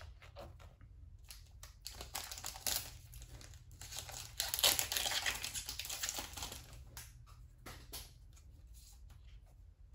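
Foil wrapper of a Dragon Ball Super Card Game booster pack crinkling and being torn open, loudest in the middle. Softer rustles and clicks follow near the end as the cards are handled.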